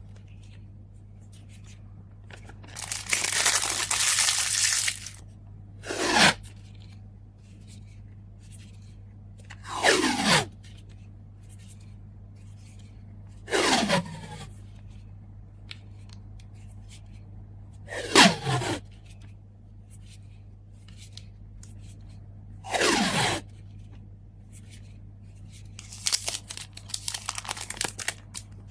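Adhesive tape being pulled off a roll again and again while packing, each pull a short screech falling in pitch, about five times, every four seconds or so. Between them come longer stretches of crinkly rustling, one near the start and one near the end.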